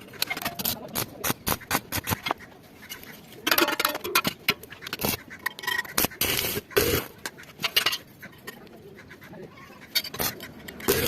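Irregular series of sharp clicks and taps with a few short scrapes in between.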